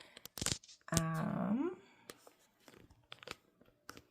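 Photocards being laid down and handled on a table: scattered light taps and clicks. About a second in, a short hum from the person, rising in pitch at its end.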